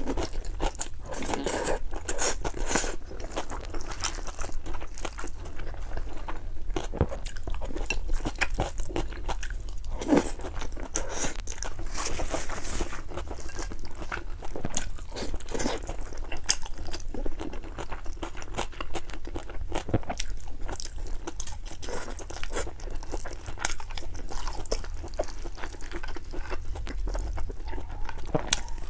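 A person eating close to the microphone: continual crunching, biting and chewing, heard as many small clicks and crackles.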